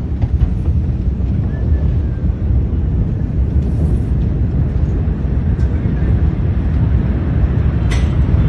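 Steady low rumble and wind noise on a phone microphone in the seconds after a huge explosion's blast, with faint voices under it. A sharp knock comes near the end.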